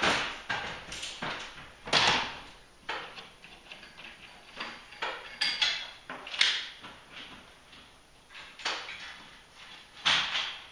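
Irregular sharp metallic clanks and clicks, some with a short ring, from hand work on garage door cable hardware and tools. The loudest come at the start, about two seconds in and near the end.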